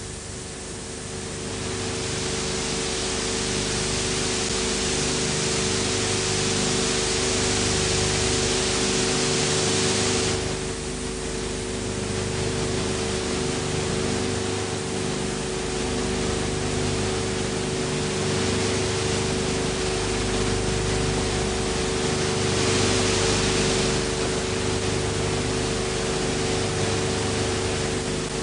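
Steady hiss with a constant hum underneath: the background noise of an old film transfer. The hiss grows louder about two seconds in, eases off just past ten seconds, and swells briefly a little after twenty seconds.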